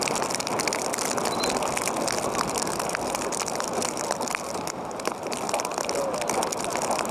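Outdoor ambience on a soccer field: a steady rush of background noise with faint, brief calls from distant players.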